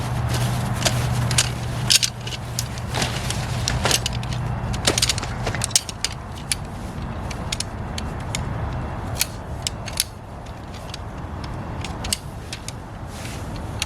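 Metal clinks, clicks and knocks of a folding camp cot's frame being handled and assembled, over a low steady hum that stops about halfway through.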